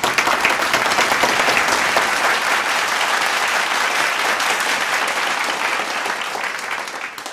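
Audience applauding: dense, steady clapping that eases off a little near the end.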